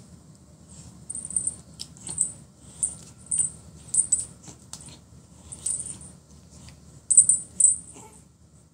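A small jingle bell on a feather wand toy jingling in short, irregular bursts as a cat bats at it, with a few sharp clicks in between.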